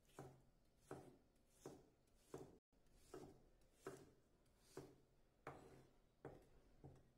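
Chef's knife chopping chayote squash into cubes on a wooden cutting board: a slow, even series of knocks as the blade goes through the squash and meets the wood, about one every three-quarters of a second.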